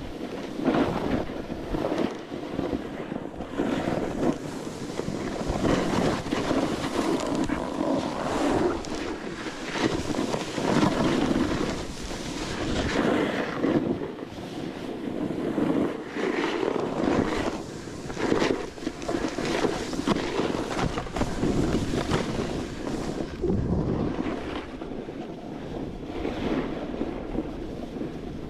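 Snowboard (Never Summer 157 Proto Ultra) sliding and scraping down snow in uneven surges, with wind buffeting the microphone.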